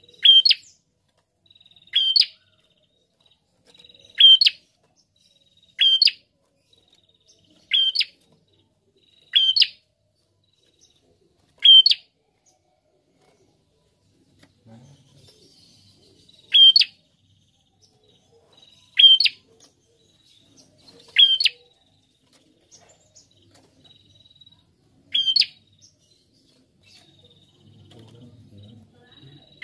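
Caged ashy tailorbird calling: about a dozen short, sharp chirps, roughly two seconds apart, with a pause of a few seconds a little before halfway.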